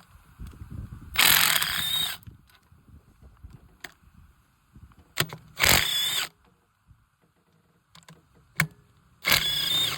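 Cordless impact driver with a 10 mm socket running in three short bursts of about a second each, backing out intake bolts.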